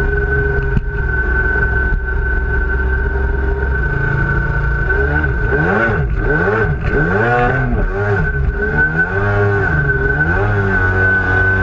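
The big-bore 920cc two-stroke engine of a Sea-Doo XP personal watercraft, fitted with a Factory Pipe exhaust, running hard at speed with a steady high whine. About four seconds in, its revs start rising and falling over and over, roughly once a second, for several seconds, then settle and climb again near the end.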